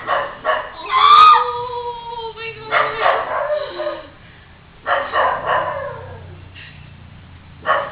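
A dog barking in short yelps, with one longer howl about a second in, the loudest sound here.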